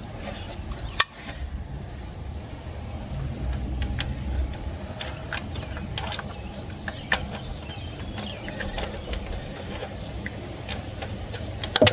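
Irregular metallic clicks and taps of hand tools working on the engine, with a louder knock about a second in, as a new oil pressure switch is threaded in with a socket and ratchet. A low rumble runs underneath.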